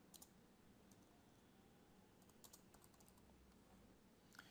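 Faint computer keyboard typing: a few scattered, separate keystrokes over quiet room hiss.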